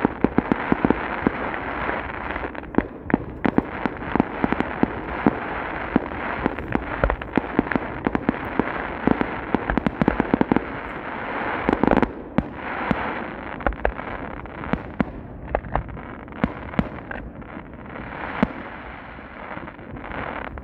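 Fireworks display: aerial shells bursting in rapid, overlapping bangs over a continuous crackle, with one longer, louder burst about twelve seconds in.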